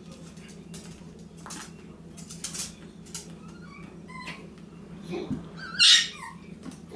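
Poodles playing rough: paws and claws scuffling and clicking on a tile floor and rug, then a short, high-pitched yelp from one of the dogs about six seconds in, the loudest sound.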